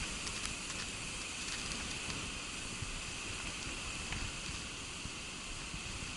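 Steady, faint outdoor hiss with a few light ticks scattered through it.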